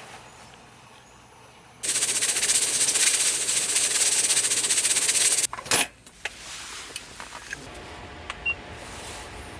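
A tent zipper pulled in one long, rasping run of about four seconds that starts and stops abruptly, followed by a sharp click.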